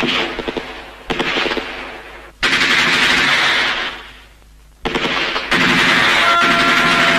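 Belt-fed machine gun firing in long rapid bursts with short breaks, the fire running almost unbroken through the last couple of seconds.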